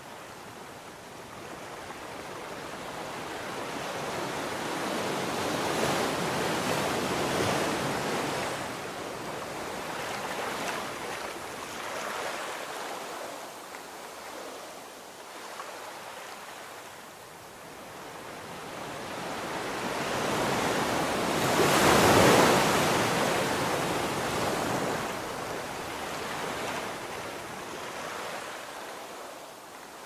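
Ocean surf breaking and washing up onto a sandy beach, a rushing sound that swells and ebbs in slow waves. The loudest wave peaks about two-thirds of the way through, then fades.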